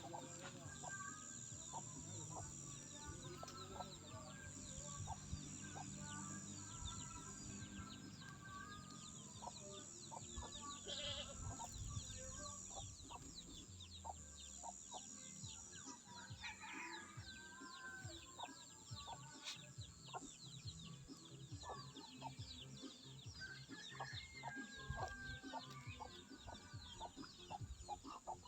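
Faint farmyard sounds: chickens clucking on and off, among other farm animals.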